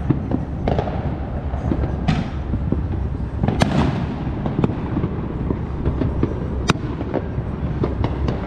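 Many fireworks and firecrackers going off at once across a neighbourhood: an unbroken rumble of overlapping distant bangs, crossed by many sharp cracks. The two sharpest cracks come about three and a half seconds in and again about six and a half seconds in.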